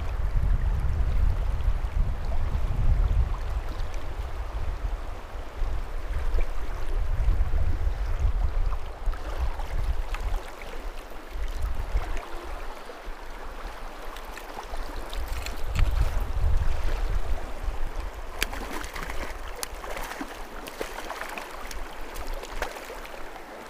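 Steady rush of a river current, with a low rumble through roughly the first half that dies away, and a few short sharp knocks later on.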